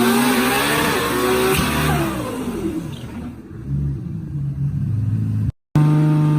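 A tuned car engine revving, its pitch climbing and then falling away as the revs drop, then running rougher and lower. About five and a half seconds in the sound cuts out for a moment and a different engine comes in, running at a steady pitch.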